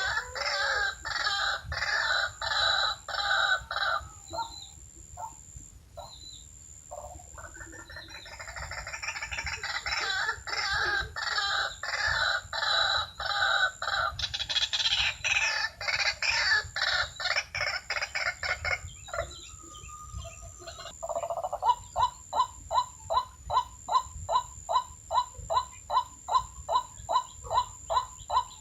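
White-breasted waterhens calling: phrases of loud, rapid, rhythmic notes with a pause between them. Then, in the last quarter, a long even run of single repeated notes, about two or three a second.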